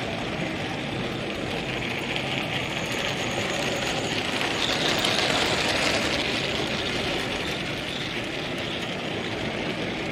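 Model Thomas the Tank Engine locomotive hauling a train of trucks running past on a model railway layout, loudest about halfway through as it passes closest, over a steady background noise.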